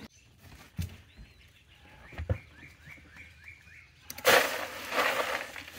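A bird gives a quick run of short chirps, then about four seconds in a catfish is dropped into a cooler and thrashes, making a loud splashing burst.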